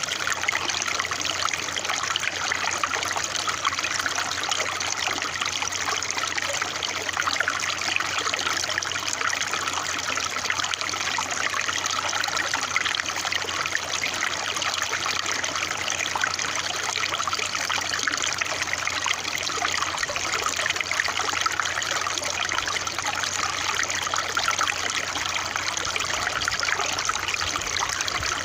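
Running water trickling and splashing in a steady, unbroken stream.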